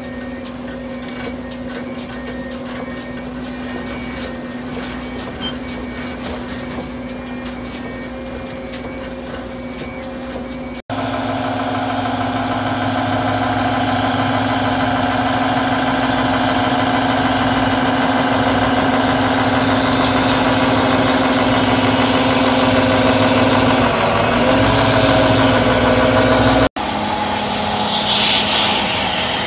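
McElroy Talon 2000 butt fusion machine running, a steady engine drone with a constant hum. It gets louder about a third of the way in, dips briefly in pitch late on, and then falls back a little near the end.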